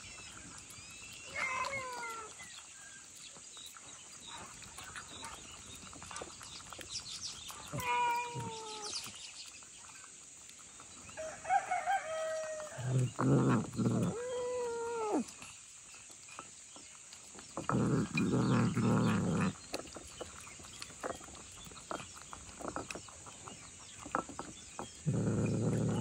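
Domestic animal calls: short falling cries, like mews, about 1.5, 8 and 12 seconds in. Longer, louder calls, like fowl, come about 13, 18 and 25 seconds in.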